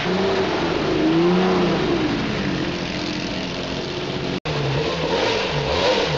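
Historic rally car engines running: one revs up and settles back down about a second in, then after an abrupt cut another engine runs with its pitch wavering up and down.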